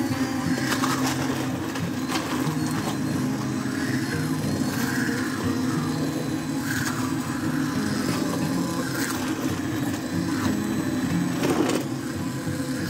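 Hand-held immersion blender running steadily in a steel pot, puréeing a thick tomato-and-onion sauce, its motor humming with occasional knocks.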